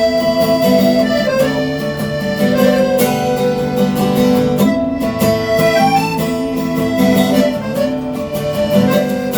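Band playing an instrumental passage with no singing: a held, sliding melody line over strummed guitar.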